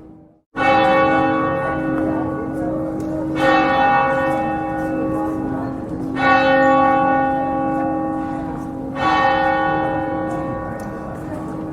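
Church bell tolling: four strokes about three seconds apart, each ringing on into the next over a steady low hum. The strokes begin after a brief moment of silence.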